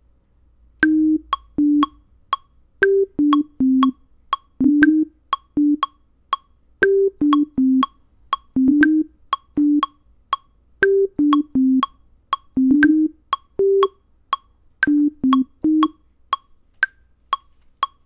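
Ableton Live's Operator synthesizer playing a simple melody of short, low, plucky notes on a few repeating pitches, over a metronome clicking steadily about twice a second.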